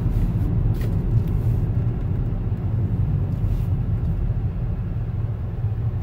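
Car cabin noise while driving: a steady low rumble of road and engine noise heard from inside the car.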